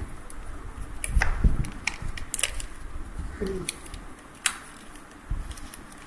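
Sheet of origami paper being handled and creased, with scattered crisp crackles and clicks over low handling rumble. A brief low falling tone, like a coo, comes a little past the middle.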